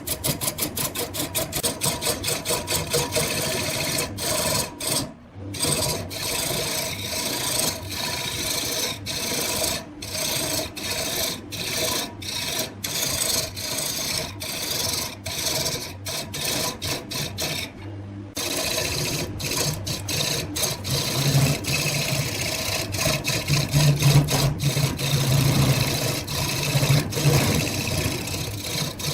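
Woodturning: a tool rasping against wood on a lathe, a steady scraping hiss broken by many short gaps. A low hum joins a little past the middle.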